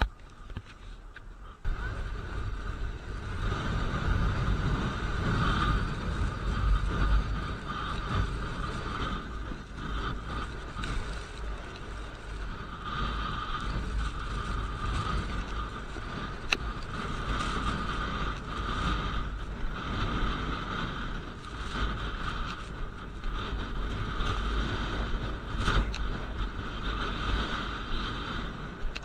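Strong wind buffeting an action camera's microphone, a constant rumbling gust noise that jumps louder about two seconds in, mixed with the steady scraping hiss of a snowboard sliding over wind-packed snow.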